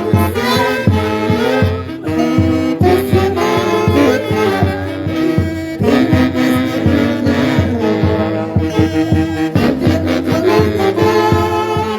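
Live dance orchestra playing an instrumental passage led by saxophones and brass over a steady beat.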